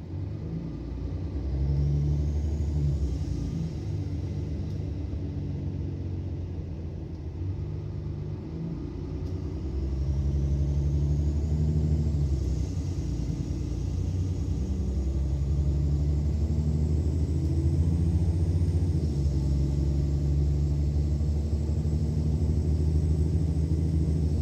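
Mercedes-Benz Citaro O530 bus diesel engine heard from inside the cabin, pulling hard under acceleration. Its pitch steps as the ZF automatic gearbox changes gear, and a faint high whine rises alongside.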